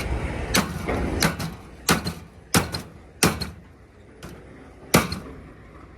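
Repeated sharp metal knocks and clanks, about seven irregular strikes, from hand tools hitting and prying at the sheet-metal casing of a scrap air-conditioner coil to break it open.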